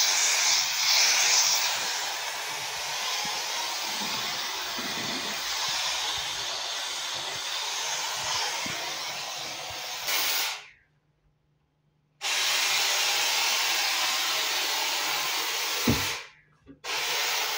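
Steam cleaner jetting pressurised steam in a steady hiss, broken twice by short complete silences.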